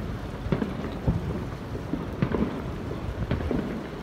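Outdoor ambience: a low rumble with irregular soft thumps a few times a second, and no voices.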